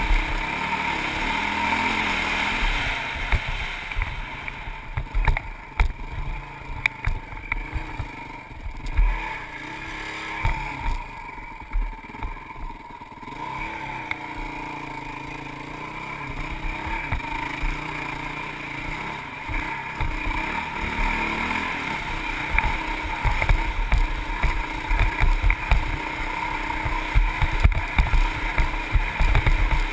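Honda CRF450X dirt bike's single-cylinder four-stroke engine running as the bike is ridden, with wind buffeting the microphone in low thumps. The engine sound thins out for several seconds early on, and the buffeting grows heavier in the last third.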